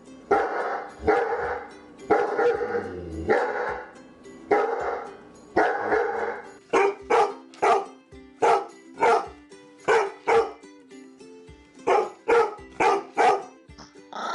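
A dog barking repeatedly and loudly. The single barks come about one a second at first, then quicken to about two a second from around halfway in.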